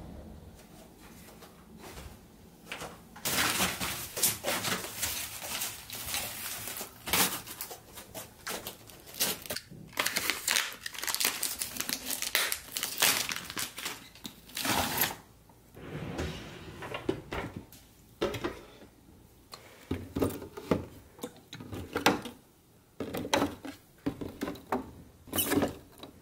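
Plastic shrink-wrap on a multipack of bottled water crinkling and tearing as the bottles are pulled free, for about twelve seconds from a few seconds in. In the second half it gives way to scattered knocks and clunks of plastic bottles being set into place.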